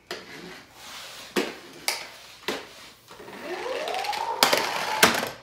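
Small toy car knocked against the wooden floor a few times as it is handled, then sent off across the floor: a whine rises and holds over the noise of its wheels rolling, with two sharp knocks near the end.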